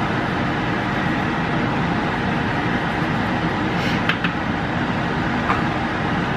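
Steady rushing background noise with a faint low hum, unbroken throughout, and a few faint light clicks about four seconds in.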